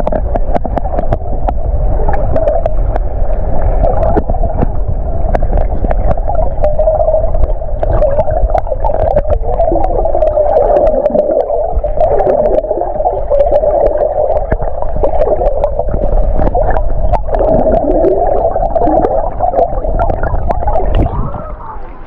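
Muffled underwater sound from a camera submerged in shallow seawater: a steady, dull rush of moving water with scattered small clicks and knocks.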